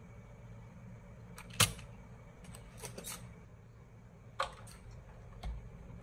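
Several sharp clicks and light knocks of a soldering gun and small parts being handled on a workbench, the loudest about one and a half seconds in and a dull thump near the end, over a low steady hum.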